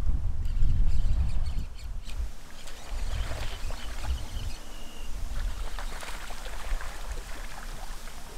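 Wind buffeting the microphone for about the first two seconds, then quieter wind with scattered high clicks and a brief high squeal about halfway, as a spinning reel is worked against a hooked bass.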